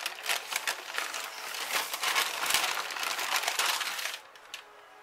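Baking paper crinkling and rustling as it is peeled off the base of a baked meringue pavlova, a dense crackle that stops about four seconds in.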